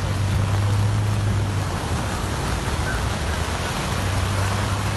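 Heavy rain falling in a steady hiss, with a low hum underneath that drops away about two seconds in and comes back near the end.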